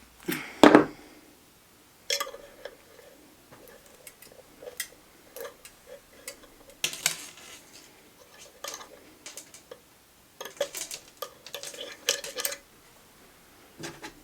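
Metallic clinks, clicks and clatter of hand tools and parts being handled while a homemade jaw jacker's metal trigger is shortened and adjusted. The loudest is a double clatter about half a second in, followed by scattered sharp clicks in bunches.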